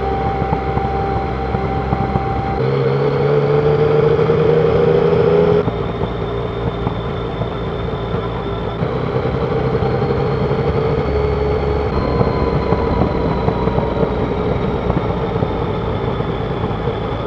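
Yamaha Tracer 900's stock-exhaust engine running under way. Its note climbs for about three seconds, drops sharply when the throttle closes about five and a half seconds in, then steps in pitch a couple more times.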